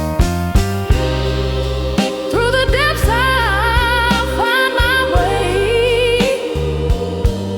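Slow soul song with drums and bass. About two seconds in, a wordless vocal line with vibrato comes in and runs in several phrases.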